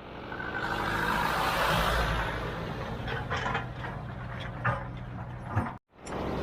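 Heavy diesel machinery running steadily, with a few sharp knocks and clanks in the second half. The sound cuts out for a moment near the end, then comes back.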